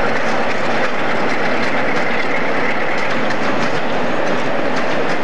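British Rail Class 37 diesel locomotive running past at a steady, loud level, its diesel engine working, with wheels clicking over the rail joints and pointwork.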